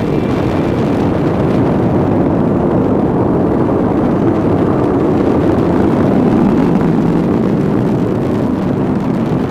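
Falcon 9 rocket's first stage firing its nine Merlin engines during ascent: a loud, steady, deep rumbling noise with no clear tone.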